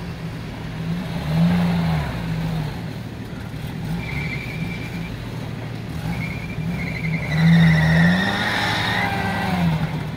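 Off-road 4x4 engine working through slippery wet grass, the revs rising twice, about a second in and again past the middle. A high wavering whine joins it in the second half, typical of tyres spinning for grip.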